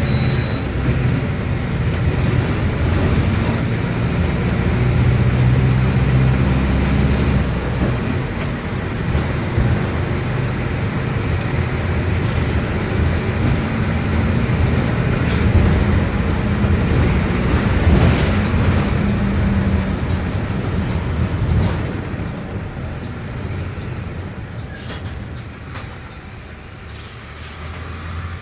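Mercedes-Benz OM-924 LA four-cylinder inline diesel of an OF-1721 BlueTec 5 bus running as the bus drives, heard on board. The engine sound falls away noticeably about three-quarters of the way through, with a few sharp ticks near the end.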